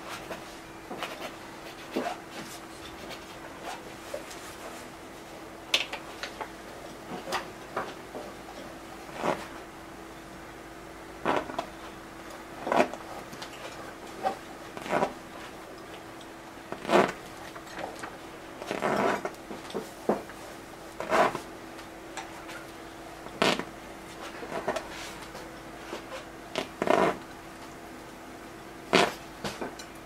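Paintbrush dabbing and scrubbing oil paint onto a canvas stretched on an easel: irregular short scuffs and taps, one every second or two, over a steady hum.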